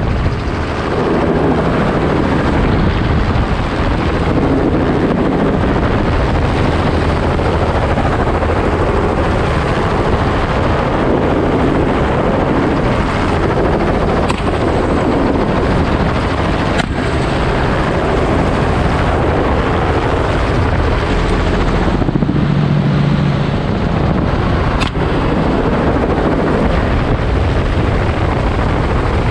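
Helicopter running in flight, heard from on board as a loud, steady din of engine and rotor. A few faint sharp clicks sound over it.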